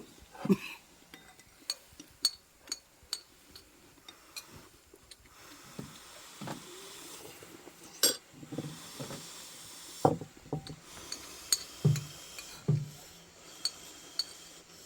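Spoons and chopsticks clinking and scraping against dishes during a meal: a scattered string of short sharp clinks with a few duller knocks.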